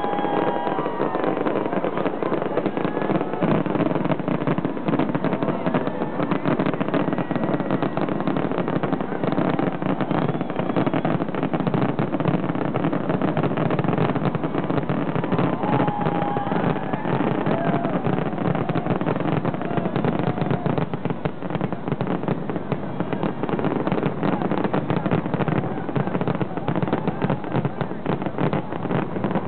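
Aerial fireworks bursting and crackling in a continuous barrage, the crackles growing denser through the second half, with crowd voices underneath.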